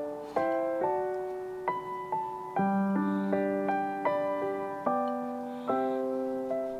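Background piano music: soft notes and chords struck one after another, each fading away before the next.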